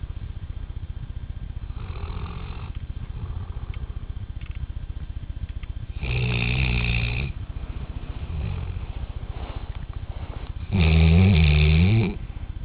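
A sleeping dog snoring. A steady low rumble runs under two louder, pitched snores of about a second each, one about six seconds in and one near the end.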